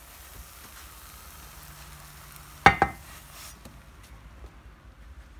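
Oil sizzling under a gobi chana paratha in a nonstick frying pan. About two and a half seconds in come two quick knocks, as the spatula takes the paratha out, and the sizzle fades soon after.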